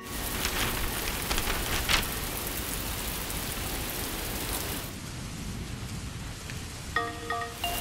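Heavy rain falling steadily, with water pouring down in a stream from the roof edge, an even hiss with some splashing in the first couple of seconds. A few short chime-like notes start near the end.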